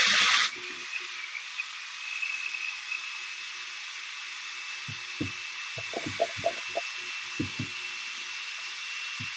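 Countertop electric blender running steadily with a thin high whine, pureeing tomatoes, peppers and onion into a stew base, heard thinly as if through a video call. A louder burst of blending cuts off about half a second in, and a few soft knocks come in the middle and near the end.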